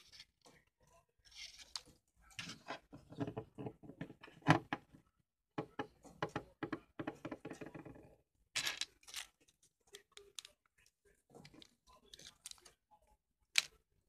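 Paper rustling and crinkling as a printed sheet is handled, with scattered clicks and knocks of objects being moved; the loudest knock comes about four and a half seconds in.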